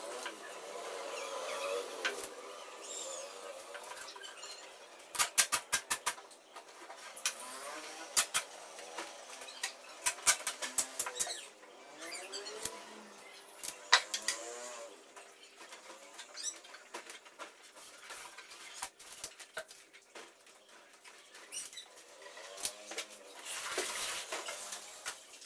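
Black adhesive tape being pulled off its roll in short crackling rips and pressed down onto wooden boards, in several bursts of rapid clicks with quieter rubbing between.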